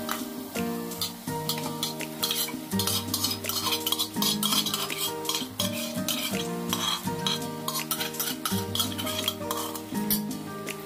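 A metal spoon stirring and scraping chicken pieces in a metal pot as they sizzle in the oil-and-tomato masala, with irregular clinks against the pot. Background music with held chords plays underneath.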